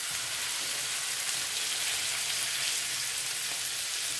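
Marinated fish pieces shallow-frying in hot coconut oil: a steady, even sizzle with fine crackling.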